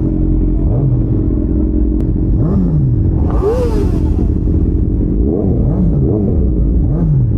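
Superbike engines revved in short blips, the pitch rising and falling about half a dozen times over the steady running of the other motorcycles.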